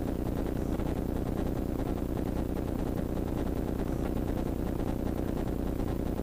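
Off-road race vehicle's engine idling steadily, heard from inside the open cab.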